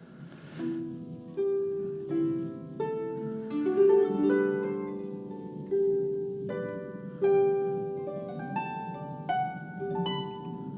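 Background music: a harp plucking a slow, gentle melody of single notes that ring and fade.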